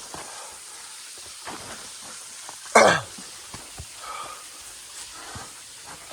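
Scuffs and rustles of footsteps and hands scrambling up a steep dirt slope, over a steady background hiss. About three seconds in comes one loud, brief scrape.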